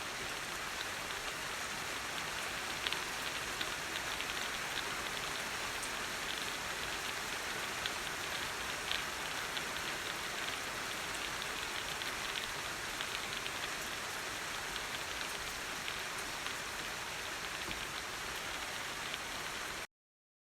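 Steady rain, with many small drops ticking on a surface over a constant hiss; it cuts off abruptly near the end.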